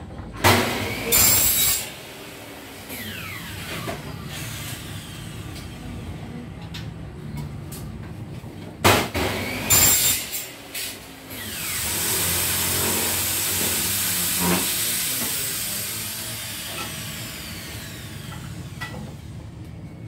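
Electric power tool working on frame stock: two short loud bursts, then a longer run that fades away with a falling whine as the motor winds down.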